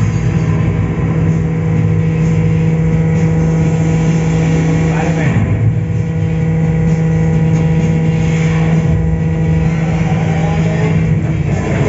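Ride-film soundtrack played loud over cinema speakers: a steady low vehicle drone, with whooshing sweeps about five and nine seconds in.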